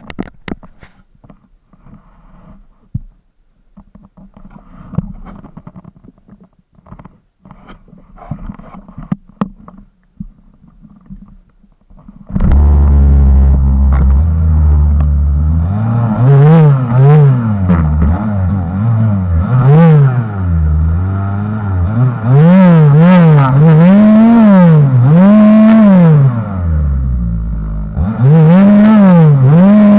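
A few faint clicks and knocks, then about 12 seconds in a Lynus MLY-55 two-stroke gasoline chainsaw starts up loudly. It revs up and down over and over, dips back toward idle shortly before the end, then revs up again.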